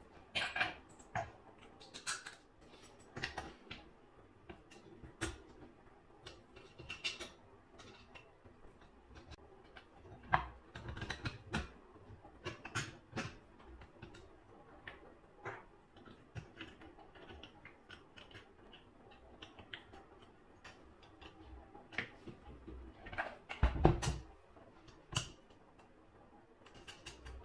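Scattered light clicks and taps of small plastic parts and metal tools being handled while the propeller on an electric ducted fan is changed, with a louder knock near the end.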